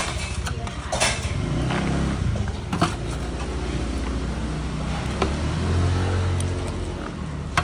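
A road vehicle's engine running close by, swelling in loudness a few seconds in and then easing off, with a few sharp clinks of a metal ladle against a steel tray.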